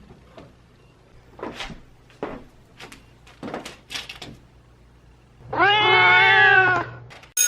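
A few light knocks and rustles, then one loud cat meow lasting about a second and a half. Just at the end a bell starts ringing.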